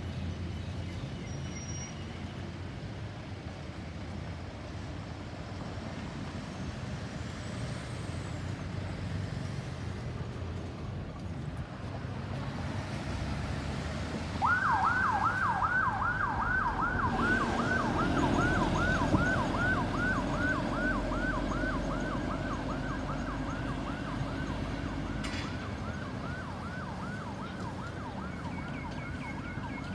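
Road traffic rumble, then about halfway through an ambulance's electronic siren switches on in a fast yelp, about three rapid up-and-down wails a second. It grows louder for a few seconds, then eases off a little while still sounding.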